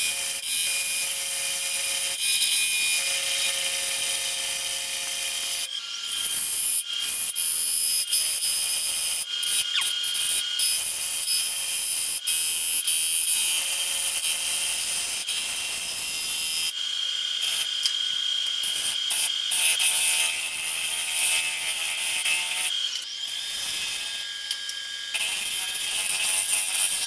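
Bowl gouge cutting the inside of a large pecan bowl spinning on a wood lathe: a steady hissing scrape of the tool on very hard, dry wood during a finishing pass. It breaks off briefly a few times as the tool lifts, once about six seconds in and again after about seventeen and twenty-three seconds.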